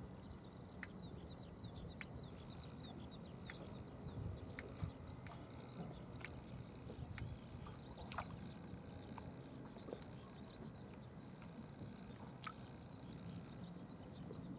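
Underwater harbour ambience: a low rumble with faint scattered crackling clicks and a few sharper ticks.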